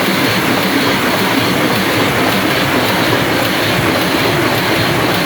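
Offset printing press running, a loud steady mechanical clatter.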